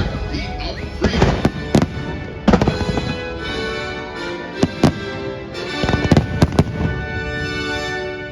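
Fireworks shells bursting in a string of sharp bangs, some in quick pairs and clusters, over show music playing on loudspeakers.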